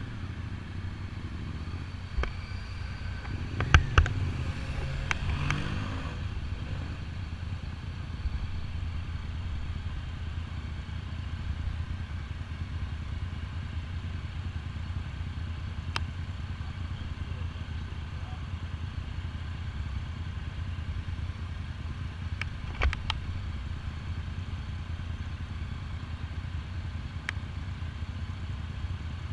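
Motorcycle engine idling steadily, with a few sharp clicks and knocks; the loudest come about four seconds in.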